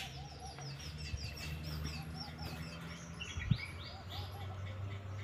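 Small birds chirping: a quick run of short, high, falling chirps, then a few lower notes, over a faint low hum. A single soft thump comes about three and a half seconds in.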